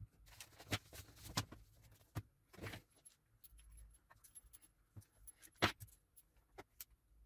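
Scattered faint clicks and light knocks, the loudest about five and a half seconds in.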